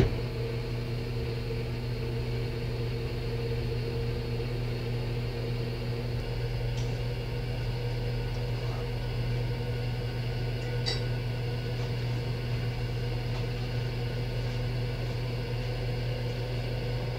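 Smeg convection oven's fan running at baking temperature, a steady low hum, with a couple of faint ticks about seven and eleven seconds in.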